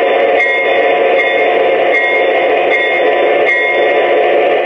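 Model diesel locomotive's onboard sound system, an abbreviated Legacy RailSounds set, playing a steady diesel idle through its small speaker while a bell rings about once every 0.8 s.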